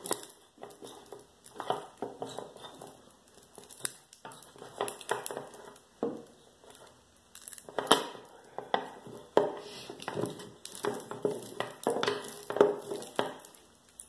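Small wire cutters squeezing and snipping at the braided steel strands of a vinyl-covered Kryptonite cable bike lock, making irregular metallic clicks and crunches as the jaws bite and are worked around the cable.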